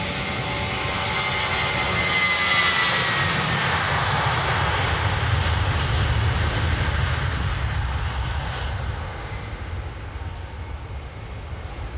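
Airbus A319 twin jet engines at takeoff power as the airliner rolls past and climbs away. A whine drops in pitch as it passes, about two to three seconds in. The roar is loudest in the middle and fades toward the end.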